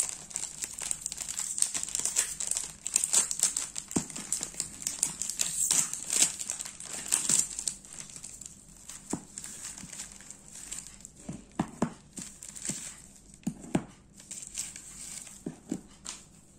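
Plastic snack wrapper and its foil inner wrap crinkling and rustling as they are pulled open by hand. Past the halfway mark it quietens to a few soft, scattered knocks as the wafer sticks are set down on a table.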